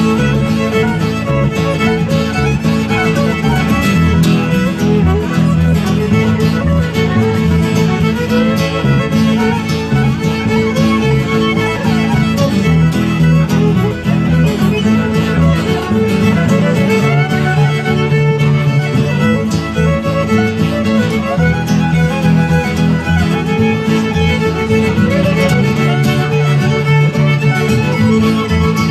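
Live barn dance band playing a fiddle tune: the fiddle leads over strummed guitar in a steady dance rhythm.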